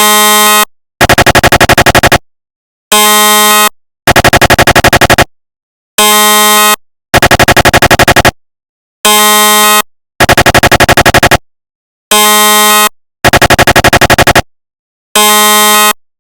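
Synthesized recreation of a GE SIGNA Victor MRI scanner's gradient noise. A steady buzzing tone, under a second long, alternates with about a second of rapid, even pulsing, and the pair repeats about every two seconds. It stops near the end.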